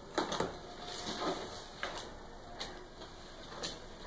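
Cardboard parcel being slit and opened with a small cutter: a few short scratchy strokes of the blade along packing tape and cardboard, the strongest just after the start, with cardboard rustling between them.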